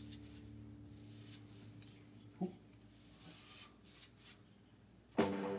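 A paintbrush stroking paint onto a drywall wall: a series of soft, dry swishes, several strokes in a row. Music comes in suddenly near the end.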